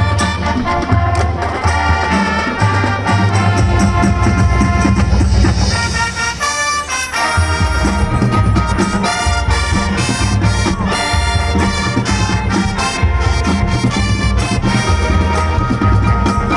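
High school marching band playing, brass carrying the melody over a strong low bass and percussion beat, with a brief drop in the low end about six to seven seconds in before the full band comes back in.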